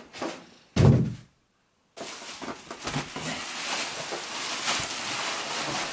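Plastic packaging bag crinkling and rustling as it is pulled about inside a cardboard box, preceded about a second in by a single thump and a brief dead silence.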